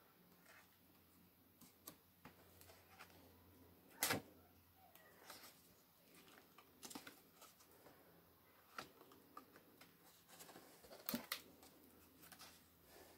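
Faint paper sounds of thick, paint-stiffened art journal pages being turned by hand: soft rustles and flaps, with two louder sharp taps, about four seconds in and about eleven seconds in.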